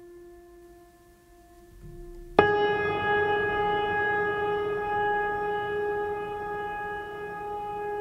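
Background music of long held tones: a soft steady note, then a much louder, fuller held note that starts suddenly about two and a half seconds in and sustains.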